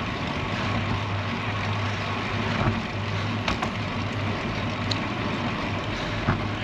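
Riding noise from a road bike under way: tyres rolling on pavement and wind on the microphone, a steady rush with a low hum. Four short sharp knocks, as from bumps or road joints, come during the ride.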